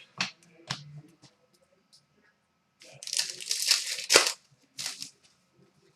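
Trading cards being handled and slid against one another: a few light clicks, then a papery rustle and scrape about three seconds in that ends in a sharp snap, and a shorter rustle near the end.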